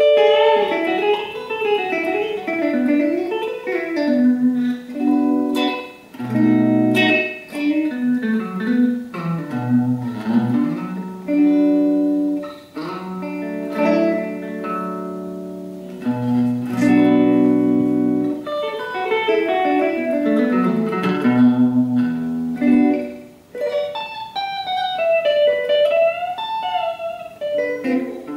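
Telecaster-style electric guitar played through a Vox combo amp and the repaired Ibanez DE7 delay pedal: melodic single-note runs rising and falling, and held chords.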